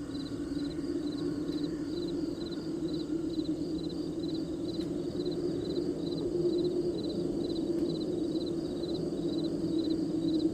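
Crickets chirping in an even rhythm, about two chirps a second, over a steady low hum.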